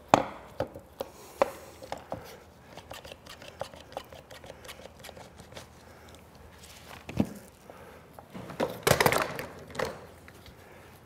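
Trigger-style one-handed bar clamps being squeezed tight onto a freshly glued lamination of white oak strips: a series of short ratcheting clicks and knocks of clamp jaws and bars against wood, with a longer, louder rustling clatter about nine seconds in.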